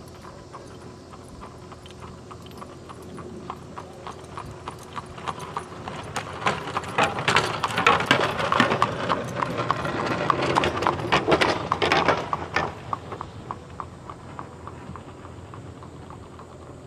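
Horse-drawn buggy going by on the road, the horse's hooves clip-clopping at a steady trot. The hoofbeats grow louder, are loudest from about halfway through, and fade away a few seconds before the end.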